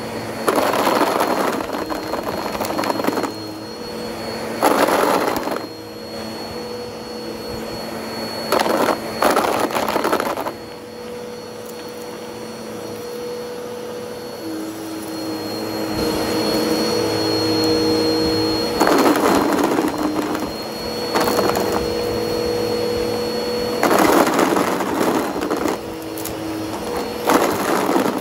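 Bissell CleanView OnePass upright vacuum running on carpet with a steady motor hum and a high whine. About six times it breaks into a loud crunching clatter, each lasting a second or two, as it sucks up pencil-cap erasers.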